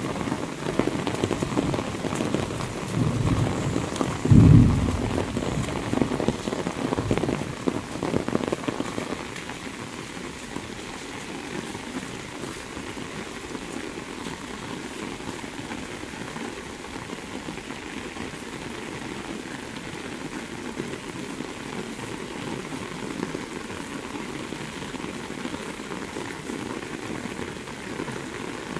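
Very heavy rain falling steadily on a paved road and vegetation, louder and rougher for the first nine seconds or so, with a brief deep rumble about four seconds in, the loudest moment. After that the rain settles into a steadier, softer hiss.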